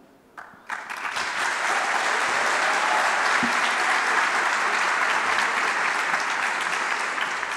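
Audience applauding, starting about half a second in and quickly building to steady clapping, greeting a speaker who has just been introduced.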